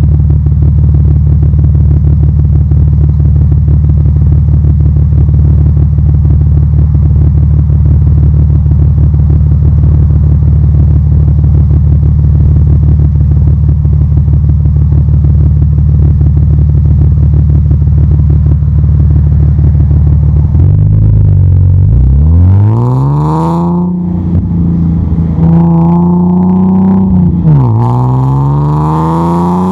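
Audi A4 3.0 quattro's V6 heard right at the tailpipe of its custom exhaust: idling steadily for about twenty seconds, then pulling away and accelerating, the note rising, dipping sharply once near the end and climbing again.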